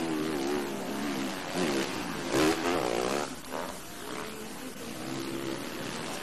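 Motocross motorcycle engine revving up and down as the rider works the throttle around the track, with a louder burst of revs about two and a half seconds in.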